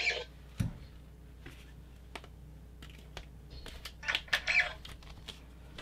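Irregular clicks and knocks of a toy lightsaber's hilt and blade being handled, as the blade is taken off one Legacy Saber hilt and fitted to another, with a dull thump just after half a second in and a quick run of clicks around four seconds in.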